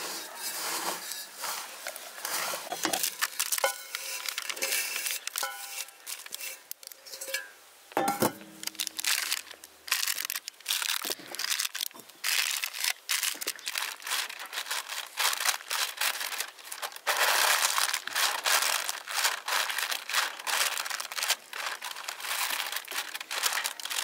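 Hands rubbing and crumbling a dry, crumbly dessert mixture, then scattering and pressing it into a parchment-lined glass baking dish: a dense crackling rustle with a knock and short ring about eight seconds in.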